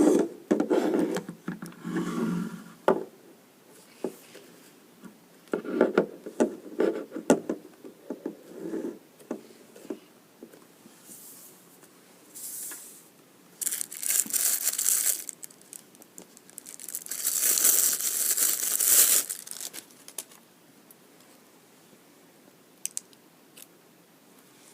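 Watch packaging being handled: rustling and knocking at first, then two longer bursts of crinkling or tearing, the second one the loudest.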